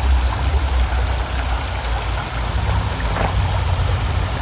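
Creek water running steadily over rocks, under a loud, steady low rumble.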